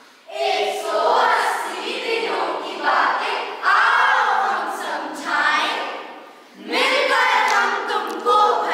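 A group of children's voices singing together as a chorus, in short phrases with a brief break about two-thirds through.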